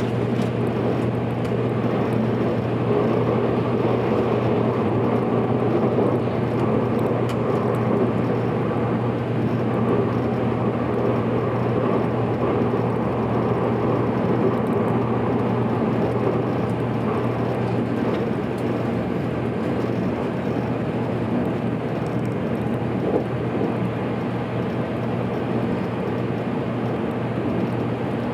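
JR Kyushu 783 series electric train running at speed, heard from inside: a steady rumble of running noise with a constant low hum underneath.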